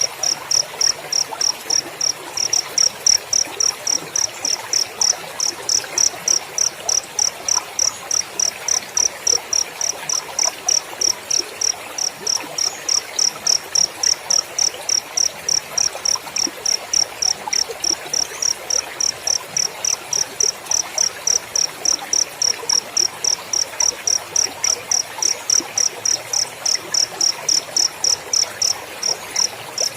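Cricket chirping steadily in an even, unbroken rhythm of short high chirps, about three a second.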